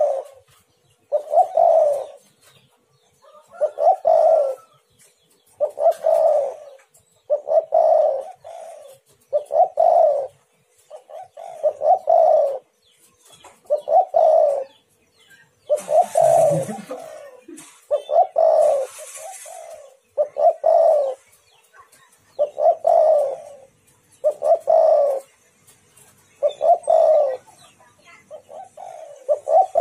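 Spotted dove (tekukur) cooing over and over, a phrase roughly every two seconds. A short rustling hiss breaks in twice, at about 16 and 19 seconds in.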